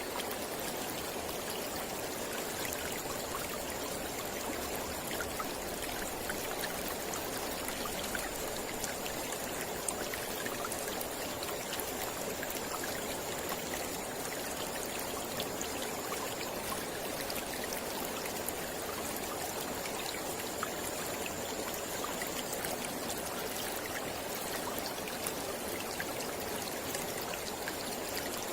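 Mountain river flowing steadily, a continuous rush of water with many small splashes and trickles through it.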